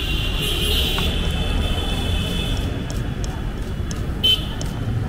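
Knife chopping green chillies on a wooden cutting board: quick, light taps from about halfway through, with one louder knock near the end, over a steady low traffic rumble. A high steady tone sounds through the first half.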